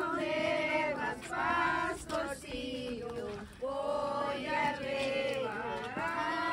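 A mixed group of men, women and children singing a Spanish Christmas carol together, with sustained sung notes.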